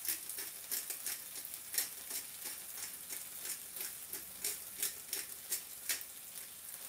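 Black pepper grinder being twisted over a pan of chopped vegetables, a run of quick irregular crackling clicks over the soft sizzle of the frying pan.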